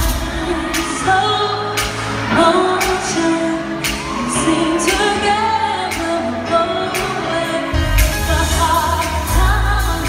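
Live pop music from an arena show: a female lead vocal sung over sharp drum hits and heavy bass, heard from within the audience. The heavy bass drops back through the middle and returns strongly near the end.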